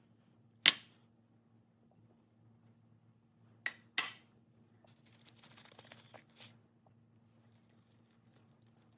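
Kitchen utensils clinking: a sharp knock, then two ringing clinks close together a few seconds later, followed by a short scraping rustle.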